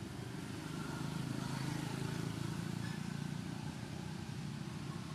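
Low, steady rumble of motor traffic, swelling about a second in and easing off toward the end, like a vehicle passing.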